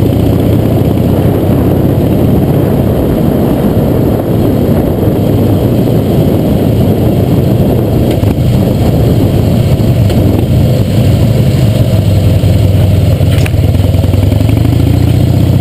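Harley-Davidson V-twin engine running loud as the motorcycle rides along, picked up close by a fender-mounted camera.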